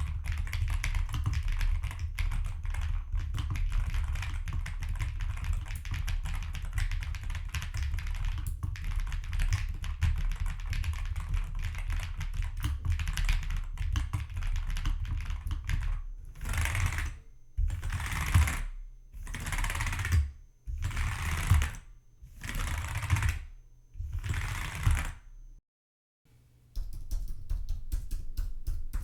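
Typing on an IQUNIX mechanical keyboard: a steady run of keystrokes, which breaks into about six short bursts of fast key presses. After a brief silence near the end, typing on an Apple keyboard begins.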